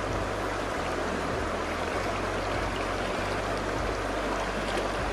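Shallow river water running over rocks and boulders: a steady rush.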